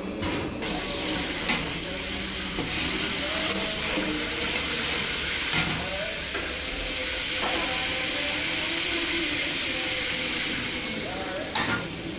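Sliced onions frying in hot oil in a large aluminium pot, a steady sizzle, broken by a few sharp knocks, the loudest pair near the end as the tray is tipped over the pot.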